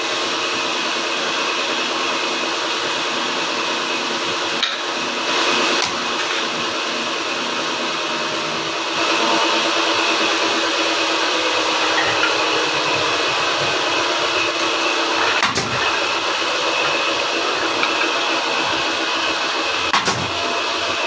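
An electric woodworking machine running steadily, with a few sharp knocks.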